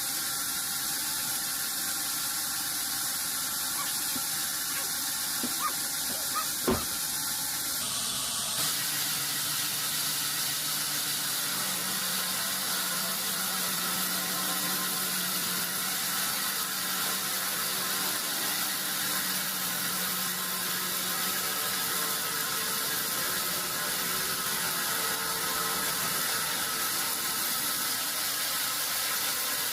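Steady hissing machine noise with faint whining tones, a sharp click about seven seconds in, and an abrupt change in the sound about eight seconds in.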